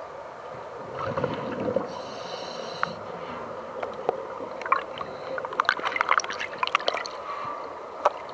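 A diver breathing underwater through a breathing regulator: a hissing inhalation about two seconds in, then crackling, gurgling exhaled bubbles from about four and a half to seven seconds.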